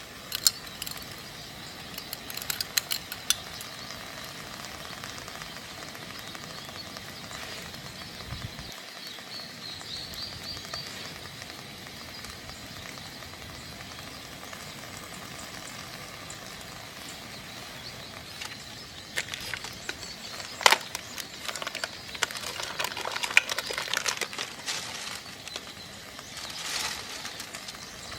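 A steady sizzling hiss, with bursts of clicks and clatters near the start and again through the last third.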